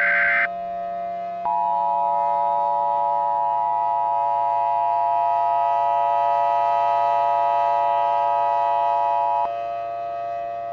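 The last data burst of an Emergency Alert System SAME header ends about half a second in. About a second later the EAS two-tone attention signal sounds steadily for about eight seconds and then cuts off. It announces an incoming tornado emergency alert, and a low steady drone runs underneath.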